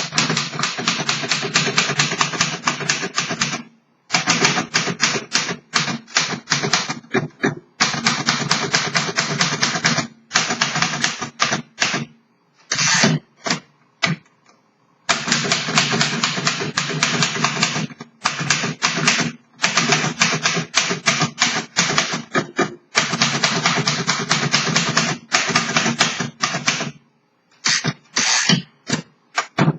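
1937 Royal Junior manual portable typewriter being typed on: fast runs of key strikes, broken by several short pauses.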